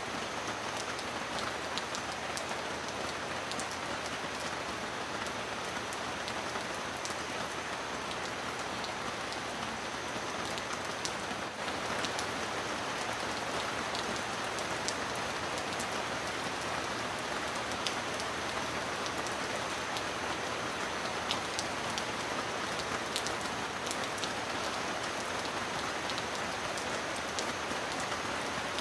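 Steady rain falling: an even hiss of rainfall with scattered sharp drop ticks, unchanging throughout.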